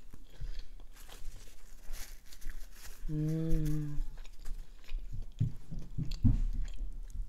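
Close-miked chewing of a Wagyu beef slider with bacon and an onion ring: irregular moist clicks and crackles of food in the mouth. A short hummed 'mmm' comes about three seconds in, and heavier chewing or biting sounds follow near the end.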